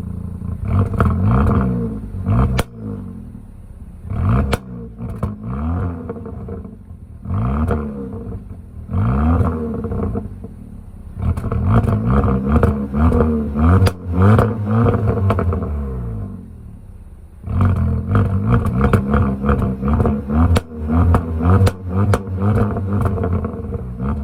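Stock 2022 Kia Forte four-cylinder engine revved in repeated blips while cold, the pitch rising and falling each time, with short spells at idle between them. Sharp pops and crackles from the exhaust come between the revs, thickest near the end.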